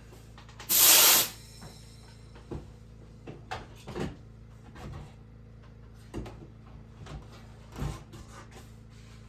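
Woodworking handling sounds: a short, loud scraping rush about a second in, then scattered light knocks and taps of wood and tools, over a steady low hum.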